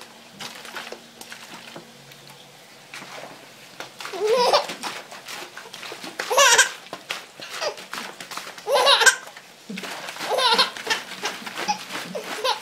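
Young baby laughing in about five short bursts, one every second or two, starting about four seconds in.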